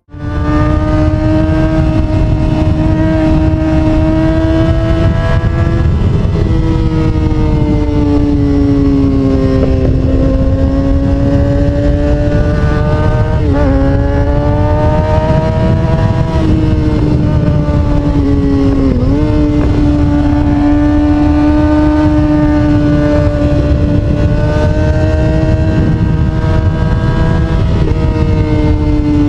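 Kawasaki Ninja sport bike's engine running hard at steady high revs, heard from the bike's onboard camera with heavy wind rush. The engine note sags and picks up again a few times, as the throttle is eased and reopened.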